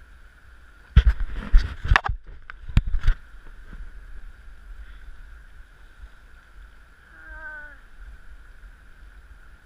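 A cluster of loud knocks and thumps on the inflatable kayak and its bow-mounted camera about a second in, as the boat starts moving off along the bank. River current runs quietly underneath, with a brief hummed voice near the end.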